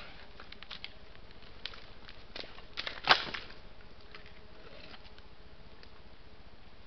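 Red deer stag in rut wallowing in a mud pool, thrashing his antlers and stamping in the wet mud: scattered splashes and squelching knocks, the loudest a sudden splash about three seconds in.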